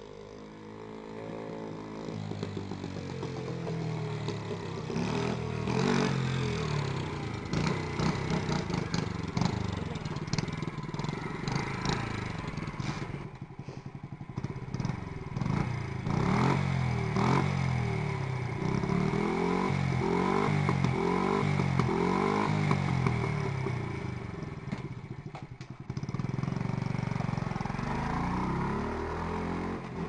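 Honda Monkey minibike's single-cylinder four-stroke engine and exhaust, being blipped over and over so the revs rise and fall repeatedly. Near the end it runs louder and steadier as the bike rides off.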